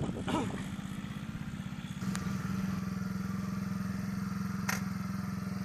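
Pit bike's small single-cylinder engine idling steadily with an even, rapid firing beat. It gets louder about two seconds in, with a few short sharp clicks over it.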